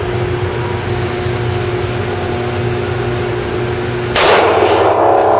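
Steady hum of indoor shooting-range ventilation with a faint steady tone. About four seconds in, a much louder, dense sound cuts in and stays loud.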